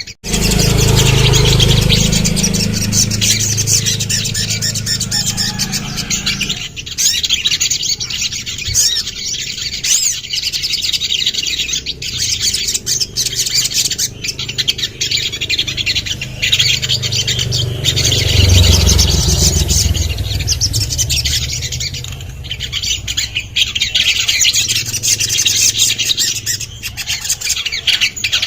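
Little spiderhunter (sogon) singing continuously in rapid, high chirping phrases. A low rumble sits under the song for the first few seconds and again about eighteen seconds in.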